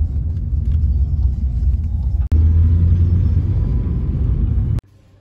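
Low, steady rumble of a car driving, heard from inside the cabin; it jumps louder about two seconds in and cuts off suddenly shortly before the end.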